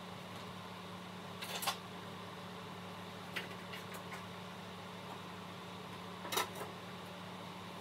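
A steady low hum, with a few brief clicks or knocks about one and a half, three and a half and six and a half seconds in.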